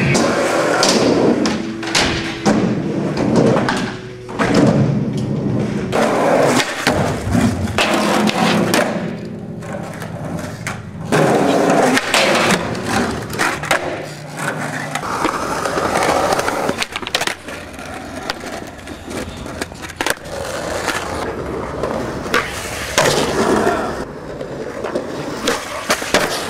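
Skateboards rolling on ramps and concrete, with a ledge grind and many sharp pops and landings of the decks.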